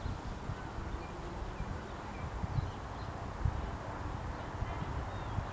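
Outdoor background noise: a steady low rumble with a few faint, short, high chirps scattered throughout.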